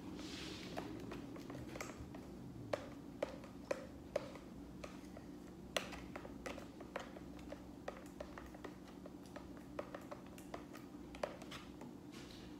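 Homemade glue-and-detergent slime being squeezed and pulled by hand in a plastic bowl: small irregular sticky clicks and pops, a few a second, over a steady low room hum.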